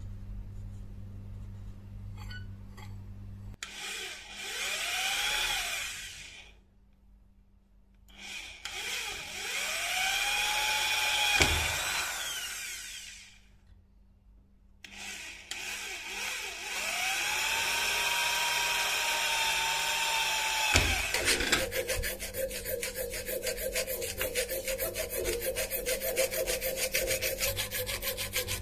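A power drill boring into a metal knife guard, run three times, each run spinning up, holding and winding down. Then a hand file rasps inside the drilled hole in quick, even back-and-forth strokes.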